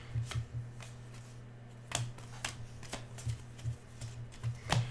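Trading cards from freshly opened football packs being flipped through by hand: irregular sharp card snaps and slides, roughly two a second, over a steady low hum.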